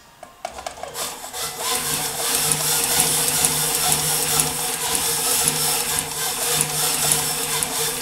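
Claes open-arm industrial sewing machine running a stitch through the boot, with a steady motor hum and rapid needle clatter starting about a second in after a few clicks.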